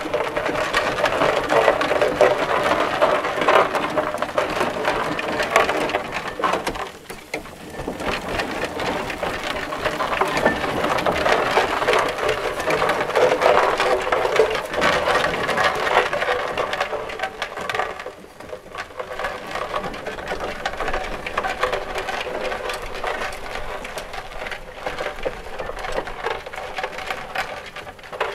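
Foster steam traction engine running: a steady hiss of steam with a fast, fine clatter of its moving parts, easing off briefly twice.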